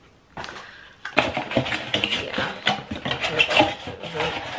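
Dry rubbing and crackling of items being handled, starting about a second in and keeping up as a dense run of small crackles.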